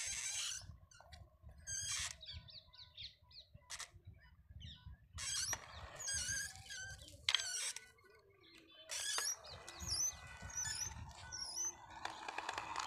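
Scattered clicks and scrapes with a faint low rumble as a homemade RC car, weighed down with bricks and an iron weight, reverses over concrete. Birds chirp, most clearly in the last few seconds.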